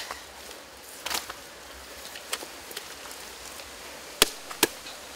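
Sticks and branches snapping and knocking as they are broken and pulled away by hand: a few scattered sharp cracks, the two loudest about four seconds in.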